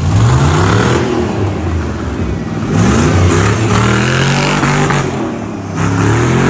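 Nissan Patrol's LQ9 Vortec 6.0-litre V8 revving hard again and again, its pitch climbing and falling as the truck spins donuts. From about three seconds in, a hiss of spinning tyres joins it.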